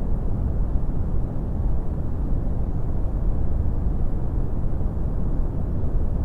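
Steady brown noise: an even, deep rumbling hiss strongest in the bass and fading toward the treble, with no changes or events.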